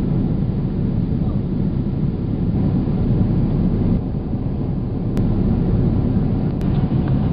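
Steady low rumble of an airliner cabin in flight, the drone of the jet engines and airflow, with two faint ticks near the end.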